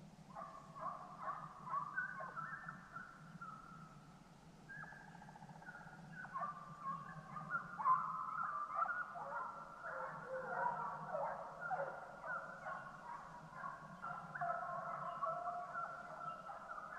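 A pack of deer-drive hounds baying far off, faint, with several voices overlapping. After a few scattered calls they pause for a couple of seconds, then bay almost without a break.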